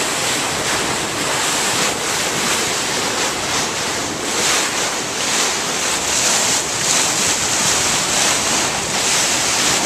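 Steady rush of wind buffeting the microphone and water hissing along the hull of a motorboat under way at speed.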